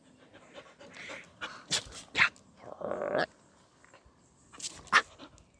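A dog at play: a short noisy dog sound about three seconds in that rises at its end. Around it come a few sharp clicks or knocks.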